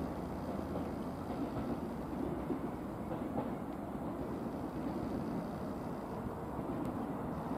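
E653 series electric express train rolling slowly through station points, a low steady rumble with a few faint clicks of wheels over the rail joints.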